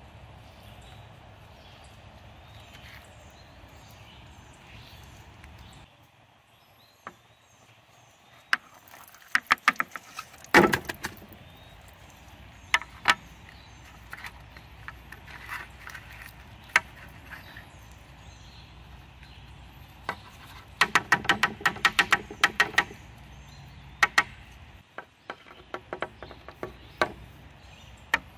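Metal sardine tins knocking and tapping against a wooden board as the fish is shaken and scraped out. Scattered sharp clicks, with two bursts of rapid taps: one about ten seconds in, another a little past twenty seconds.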